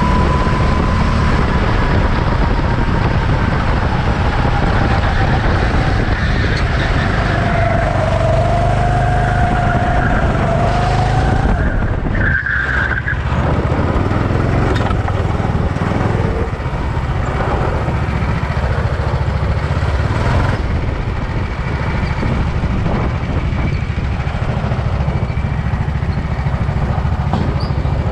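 Racing car engines running on a circuit in a loud, unbroken din. About a third of the way in, one engine's note falls and then climbs again.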